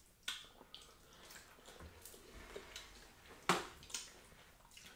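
Faint wet eating sounds of fufu and slimy okra soup eaten by hand: scattered small squishes and mouth smacks, with a sharper click about three and a half seconds in.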